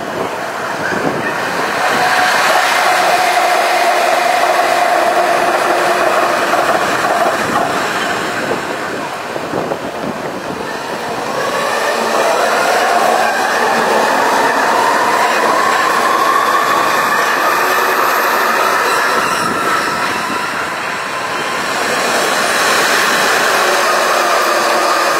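JR electric commuter trains running through a station cutting, wheels rumbling on the rails. The motors give a steady whine, and from about halfway through a slowly rising whine as a train pulls away and picks up speed.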